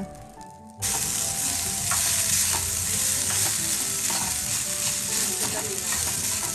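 Prawn and egg fried rice sizzling in a steel pan as a steel spoon stirs and scrapes through it, with frequent clicks of spoon on pan. The sizzle starts suddenly about a second in.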